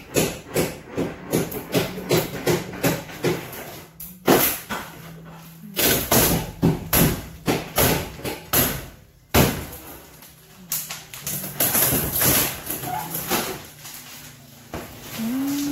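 Old ceiling boards being pried and torn down from wooden joists: a quick run of knocks at first, then repeated louder crashing and scraping as the boards break loose.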